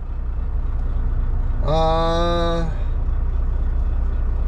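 Semi-truck diesel engine idling with a steady low rumble, heard from inside the cab. About two seconds in, a person hums or draws out one vowel on a flat pitch for about a second.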